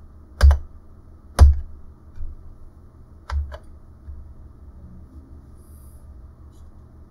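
A few separate computer keyboard keystrokes: two loud ones about half a second and a second and a half in, smaller ones after, and a closer pair a little after three seconds, over a faint steady hum.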